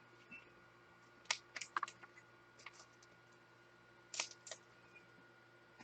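Trading cards being handled, making faint, scattered light clicks and taps: a small cluster about a second in and two more near the two-thirds mark.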